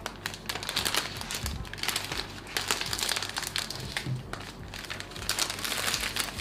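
Crinkling and rustling of a thin translucent protective wrap sheet being unfolded and pulled off a laptop's lid, in a string of quick irregular crackles.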